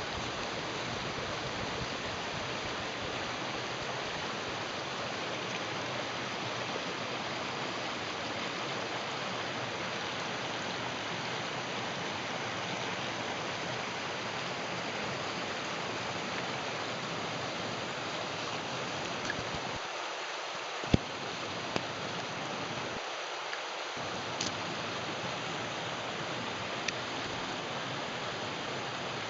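Mountain stream rushing steadily over rocks, with a few short sharp clicks about two-thirds of the way through.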